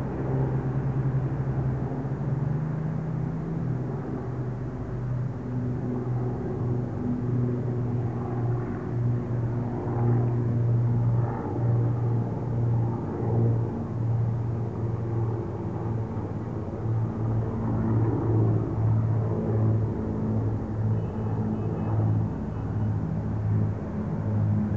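Piston engines of a World War II-era propeller airplane droning overhead: a low, steady hum that wavers in pulses.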